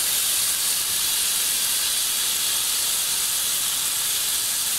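Chicken wings in sauce with onions and vegetables sizzling on a hot grill pan: a steady, even hiss.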